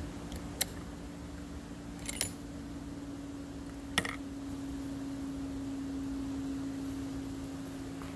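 A few sharp clicks over a steady low hum: a single click, then a quick rattling cluster of clicks about two seconds in, then another single click about four seconds in.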